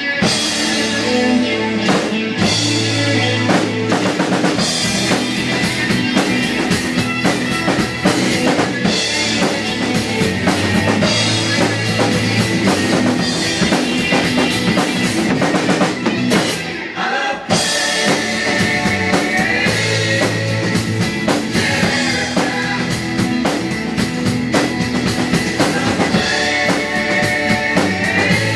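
Rock song with singing, played along on a large acoustic drum kit with many cymbals: bass drum, snare and cymbal hits over the recording. The music briefly drops out about seventeen seconds in.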